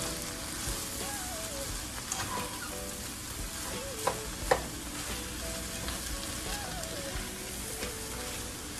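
Cabbage sizzling in a hot frying pan as it is stirred and tossed with a spatula, with two sharp knocks of the spatula against the pan about four seconds in.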